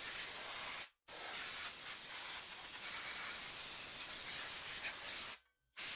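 A steady, even hiss, strongest in the high range, with no tones or knocks in it. It drops out to dead silence twice, briefly, about a second in and again near the end.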